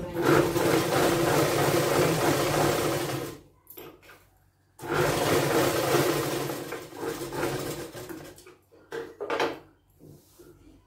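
Electric sewing machine stitching, running steadily for about three seconds, pausing briefly, then running again for about three more seconds, with a short burst near the end.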